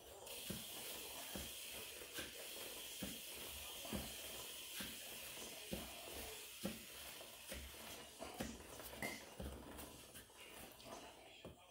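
Aerosol chain lube spraying onto a motorcycle drive chain in a steady hiss, stopping near the end. Soft knocks about once a second come from the chain and rear sprocket as the wheel is turned.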